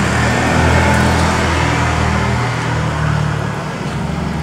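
A motor vehicle running: a steady low engine drone over road noise, its lowest part easing a little about halfway through.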